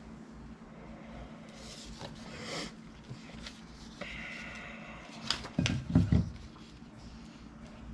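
Hands working small strips of adhesive tape on a printer's screen frame: short scratchy rustles, then a few clicks and a cluster of low knocks about six seconds in, over a steady low hum.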